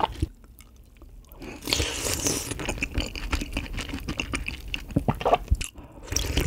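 Close-up chewing and crunching of freshly made napa cabbage kimchi with cold water-soaked rice, wet crunchy bites.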